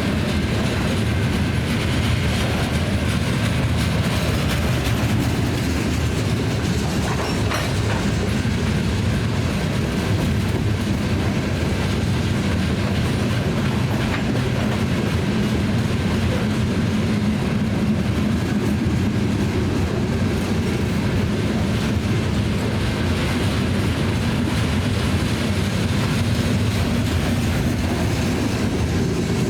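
BNSF rock train's freight cars rolling steadily past, a continuous rumble of steel wheels on the rails.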